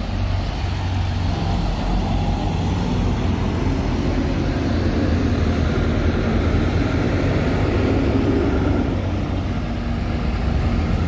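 Steady rumble of vehicle engines and passing traffic, heavy trucks among them, with no distinct single event.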